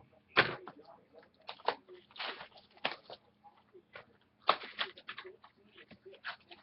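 Sports card packaging being handled and opened: irregular crinkling, crackling and light tapping of wrappers and card stock, with a few sharper crackles scattered through.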